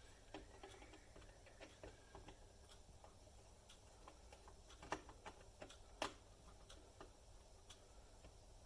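Faint scattered clicks and taps of wire ends and small parts being handled, with two sharper clicks about five and six seconds in.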